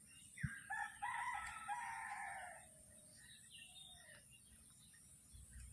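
A short thump, then a rooster crows once: a call of several notes ending in a long falling note, about two seconds in all.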